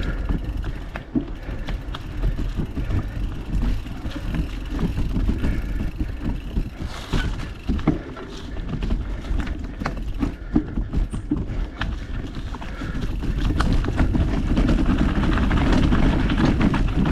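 Mountain bike rolling over a rough, rocky trail: tyres on dirt and rock, with a constant rumble and many short knocks and clatters from the bike. The rushing noise grows louder about three-quarters of the way through.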